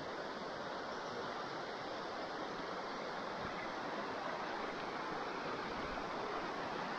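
Shallow river rushing over stones: a steady rush of water that grows slightly louder.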